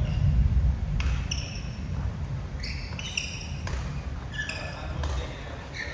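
Badminton push drill on an indoor court: sharp racket-on-shuttlecock hits about once a second, short high squeaks of shoes on the court floor, and low thudding footwork.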